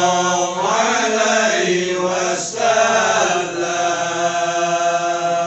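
Male voices chanting marhaban, Malay devotional verses in praise of the Prophet Muhammad, in long held melodic phrases.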